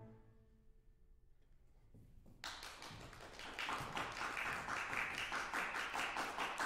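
The final chord of violin and piano rings away into a hush. About two and a half seconds in, an audience starts applauding, the clapping building as it goes.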